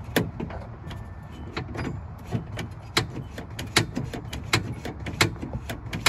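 Acura Integra door latch and lock mechanism, with its panel off, clicking as the lock is worked back and forth: a sharp click roughly every three-quarters of a second.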